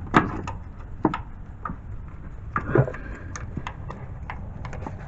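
Irregular metallic clicks and clinks, a few a second, from a small 1/4-inch-drive ratchet being fitted onto and worked on a 10 mm bolt in a tight space.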